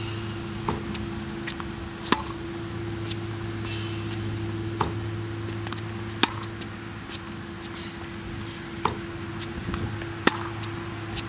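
Tennis balls struck by a racket about every four seconds, each hit a sharp crack, with fainter knocks in between, over a steady low hum.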